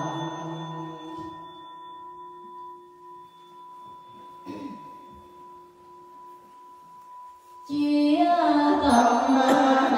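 A Buddhist bowl bell rings on with a steady, clear tone as the chanting stops, marking the prostration, with a soft knock about halfway through. Near the end, group chanting of Buddha names starts again loudly.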